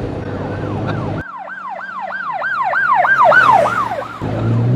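Steady car road and engine noise, then a police siren sweeping rapidly up and down, about three sweeps a second, for roughly three seconds. While the siren sounds the road noise drops out abruptly, and it returns abruptly when the siren stops.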